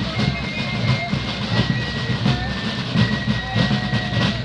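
Fife and drum corps playing on the march: drums beating a steady marching cadence under fifes holding a high melody.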